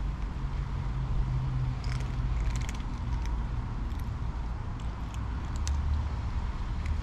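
Cats eating dry food, with scattered small crunches and clicks over a steady low rumble.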